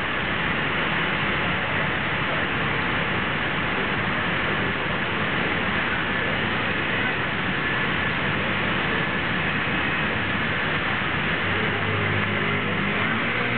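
Steady hiss of rain and traffic on wet city streets. A low engine hum comes in near the end as a vehicle draws close.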